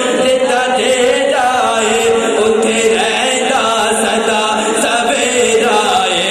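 Unaccompanied Islamic devotional chanting: a voice sings a continuous melodic line, holding long notes that glide up and down.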